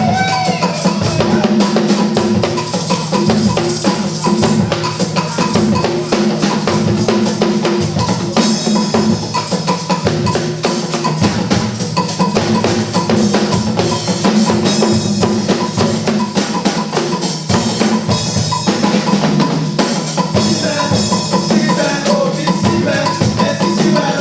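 Music with a drum-kit beat: bass drum, snare and rimshots playing a steady, busy rhythm over sustained low tones.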